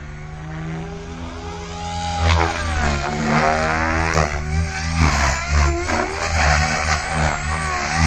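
Goblin RAW 580 electric RC helicopter flying aerobatics: whine of its brushless motor and drivetrain with the rotor blades whooshing, pitch sweeping up and down as it swoops past. It gets louder from about two seconds in as it comes in close.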